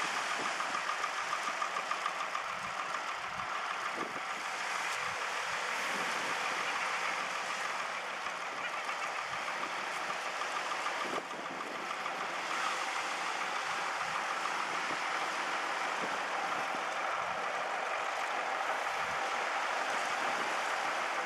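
Farm tractor's diesel engine running steadily under a light load as it slowly backs a boat trailer, over a steady hiss.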